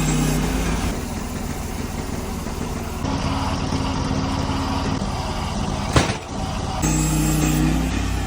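Sawmill engine running steadily, its tone changing abruptly a few times, with one sharp click about six seconds in.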